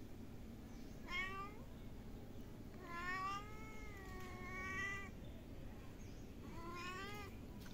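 Cat meowing three times: a short meow, then a long drawn-out one, then another short one.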